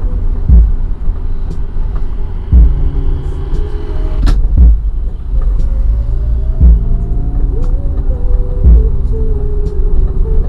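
2013 Daihatsu Xenia driving, with a steady deep rumble and heavy low thumps about every two seconds. Faint music plays over it.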